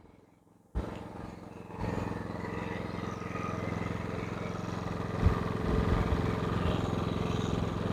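Genmax GM7250iEDC dual-fuel inverter generator's 312 cc four-stroke OHV engine running steadily on propane in eco mode, heard close up. The sound cuts in suddenly under a second in and grows louder about two seconds in, with a few sharp knocks about five seconds in.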